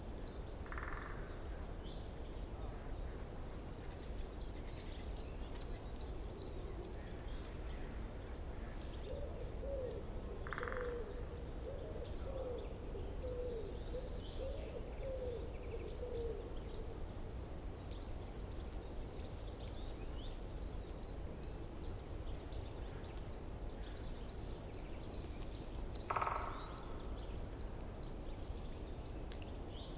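Forest stream running with a steady low rush, while songbirds repeat a high, quick trill several times and a lower run of short warbled notes comes in the middle.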